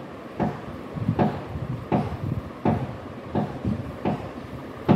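Knitting needles clicking against each other as stitches are worked, a sharp tap about every three-quarters of a second with lighter ticks between.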